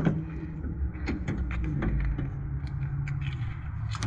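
Rear cargo door of a Ford Transit 250 van being unlatched and swung open: a few light clicks over a steady low rumble.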